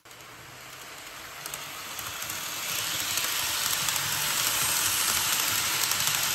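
N gauge model of a JR Kyushu 800 series Shinkansen running on its track with a rushing hiss of wheels and motor. It grows louder over the first few seconds as the train comes close, then holds steady, with a few faint ticks.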